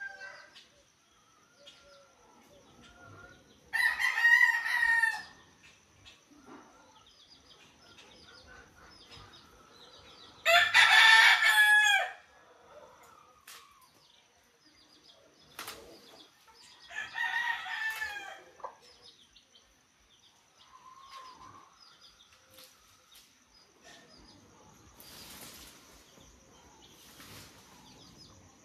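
A rooster crowing three times, each crow lasting about a second, with the loudest crow near the middle.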